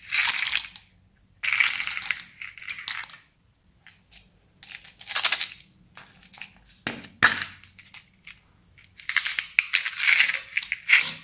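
Small plastic alphabet cube beads rattling in a plastic box and clattering out as they are poured, in several separate bursts, with a couple of sharp clicks about seven seconds in.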